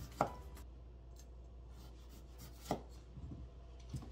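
Kitchen knife chopping through a peeled root vegetable onto a plastic cutting board: a few sharp knocks a second or more apart, over a faint steady hum.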